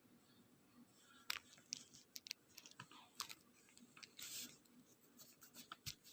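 Near silence broken by faint, scattered clicks and taps, with a short soft rustle about four seconds in: light handling of small objects.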